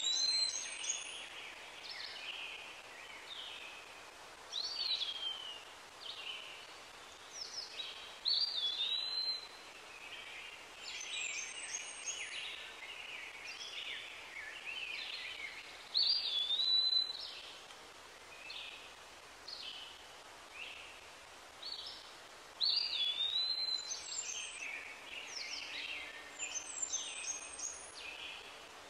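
Birds chirping and singing, many short calls overlapping, with one short rising-and-falling whistle coming back every few seconds.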